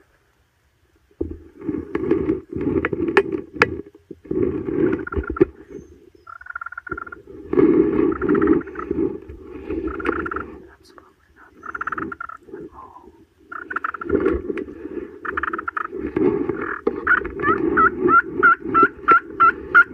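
A turkey call worked by hand, giving repeated runs of raspy, turkey-like yelps; the last run, near the end, is quicker, about three notes a second.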